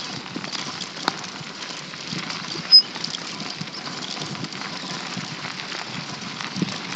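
A bicycle being ridden over pavement: steady rattling and clicking of the bike and tyres, with a sharp click about a second in and a brief high squeak a little before three seconds.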